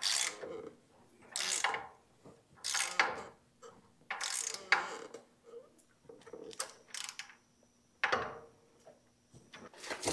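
Hand ratchet wrench clicking in short bursts, about every second and a half, as a nut is run down on a bolt.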